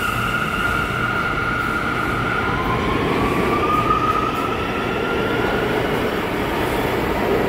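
Stainless-steel subway train pulling out of an underground station on the next track: loud, steady rumble of the cars, with a high whine rising in pitch from about two to six seconds in as it gathers speed.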